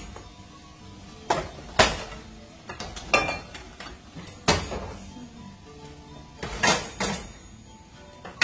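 Metal pots, pans and a pot lid clanking and knocking as cookware is moved around on an electric coil stovetop: about six sharp, separate strikes with a short ring after each.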